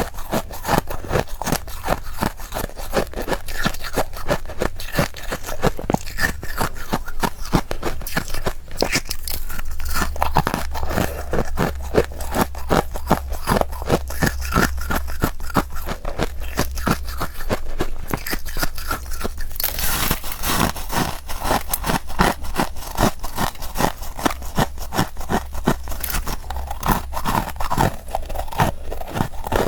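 Powdery freezer frost being bitten and chewed close to the microphone: a dense, continuous run of crisp crunches, several a second, with a louder, hissier crunch about two-thirds of the way through.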